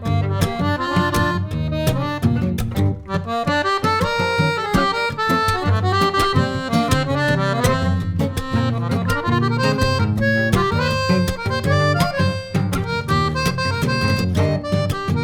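Instrumental music: a busy melody of quick notes over a steady bass line.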